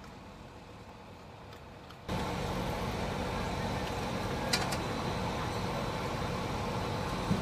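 Quiet outdoor background, then about two seconds in a steady engine noise starts abruptly and runs evenly with a low hum, broken by a couple of sharp clicks.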